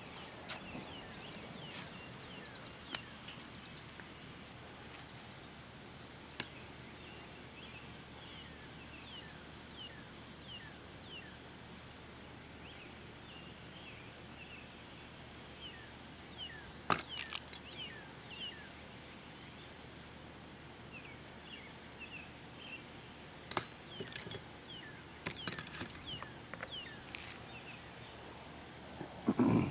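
Faint outdoor background with many short, high chirps scattered throughout. A few sharp clinks and knocks come about halfway through, and a quick cluster of them a little later, like small hard objects being handled.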